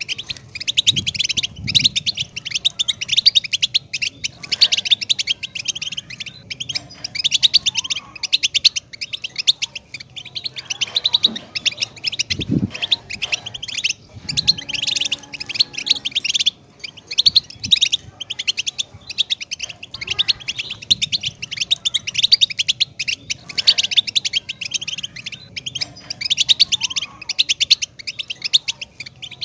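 European goldfinch singing: long phrases of rapid, high twittering and trills, broken by short pauses.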